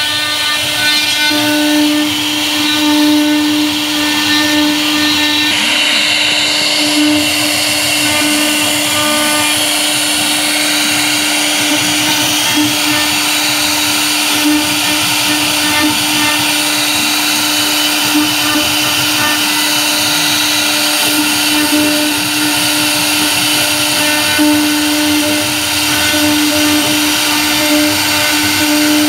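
CNC router spindle with a V-carving bit running steadily while it cuts a relief pattern into a board: a constant whine over the noise of the cut.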